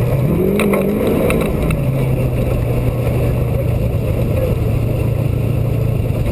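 Off-road race truck engine accelerating, its pitch rising over the first second or so and then holding a steady drone at speed over the dirt course. A few short knocks sound in the first second and a half.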